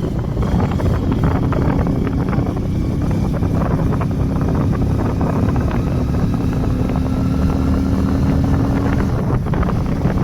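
A vehicle driving along: a steady engine drone with wind buffeting the microphone, and a held engine tone that drops away about nine seconds in.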